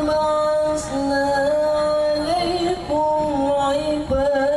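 A man's voice reciting the Quran in melodic tarannum style, holding long ornamented notes with slow pitch turns and a slight waver. There are short pauses about a second, three seconds and four seconds in.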